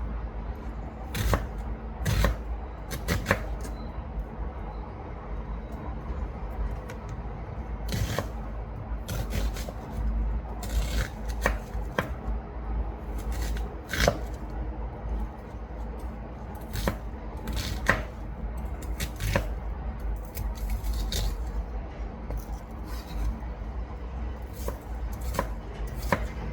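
Knife cutting on a chopping board: irregular knocks and scrapes, roughly one every second or two, over a steady low hum.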